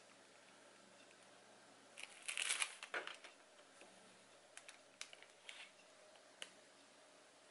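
Hands working at a baking tray of freshly piped meringue. There is a brief crinkling rustle about two seconds in, then a few light clicks and taps.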